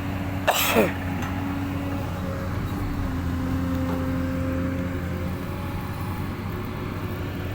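Backhoe's diesel engine running steadily, its pitch stepping slightly lower about three seconds in. A brief falling squeal about half a second in.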